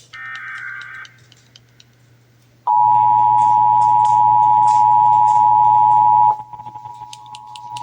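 Emergency Alert System test tones. First comes a buzzy, roughly one-second SAME digital header burst. After a short pause, the steady two-tone EAS attention signal (853 and 960 Hz together) sounds loud for about three and a half seconds, then drops sharply in level and carries on faintly.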